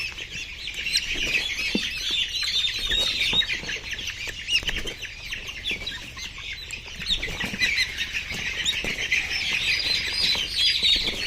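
A flock of layer chickens calling together: a dense, continuous chorus of overlapping high cheeps and clucks, with a few soft knocks among them.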